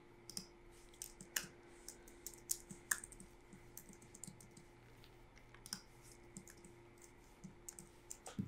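Faint, irregular keystrokes typing on a computer keyboard, each a light click.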